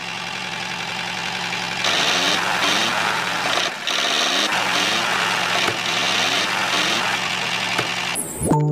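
A small engine running steadily, louder from about two seconds in, with a brief dip near four seconds; it cuts off shortly before the end.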